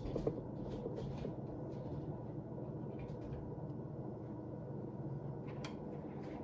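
Steady low background hum in a kitchen, with scattered light clicks and knocks of items being moved and handled, and one sharper click near the end.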